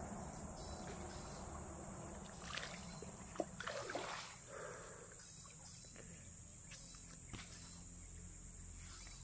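Insects droning steadily, with faint repeated chirps, while water splashes and a sharp knock come in a short cluster near the middle.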